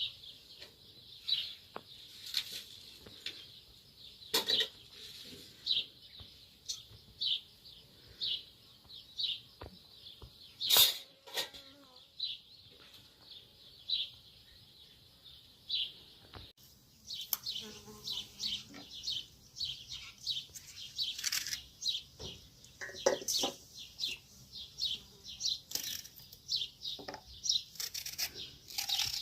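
Small birds chirping, short high chirps repeating about twice a second, becoming faster and denser, as of several birds, from about halfway through. A few sharp knocks or clinks stand out, the loudest about 11 seconds in.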